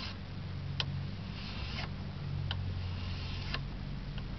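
Fine-toothed metal file rasping across the side of a Norwalk juicer cutter blade to sharpen it: about three slow strokes, each with a sharp click, over a low steady hum.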